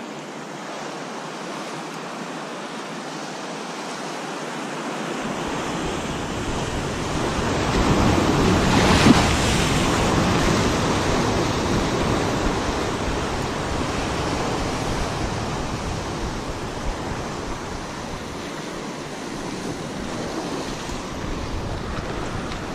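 Sea surf washing and breaking over rocks, swelling to its loudest about nine seconds in and then easing off. Wind buffets the microphone with a low rumble from about five seconds in.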